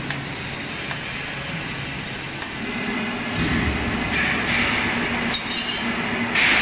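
Steel tools clinking against a feed pellet mill's steel ring die and its bolts while the die is being unbolted: scattered light metallic clinks, with a quick run of them a little past five seconds in. A hissing noise builds underneath from about four seconds in.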